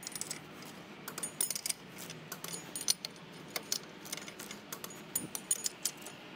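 Torque wrench tightening the nuts of a freewheeling towing hub to 100 newton metres: irregular sharp metallic clicks and clinks in small clusters.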